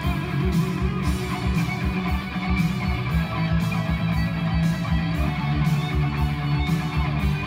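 Recorded music with a steady, deep beat, played from a vinyl record on a Panasonic turntable through a hi-fi amplifier.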